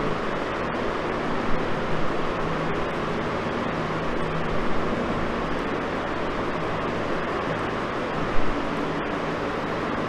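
Steady background hiss with a low hum, and a few faint soft knocks.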